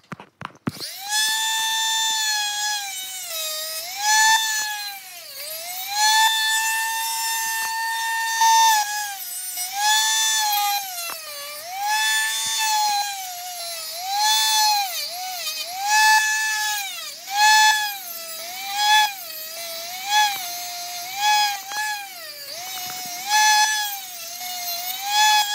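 Handheld rotary tool with a cutoff wheel starting up about a second in and running at high speed while cutting a small toy car. Its high whine dips in pitch over and over, about once a second, each time the spinning wheel is pressed into the car, and holds steady for a few seconds in between.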